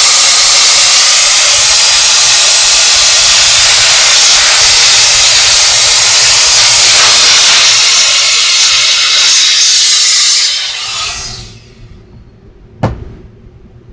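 A loud, steady hissing rush of blown air or spray as the dirty cassette deck mechanism is cleaned out; it dies away about eleven seconds in. A single sharp click follows near the end.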